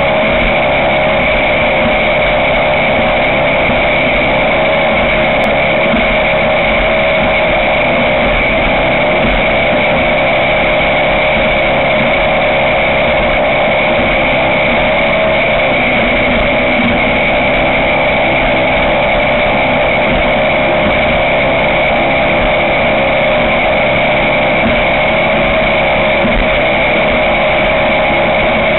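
Ski race boat's engine running steadily at constant revs, with a steady high whine above the engine note and no change in pitch or level.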